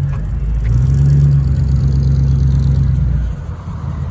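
1951 Ford Victoria's flathead V8, fitted with Offenhauser heads, running as the car pulls slowly through a parking lot. Its low, steady exhaust note swells about half a second in and eases back about three seconds in.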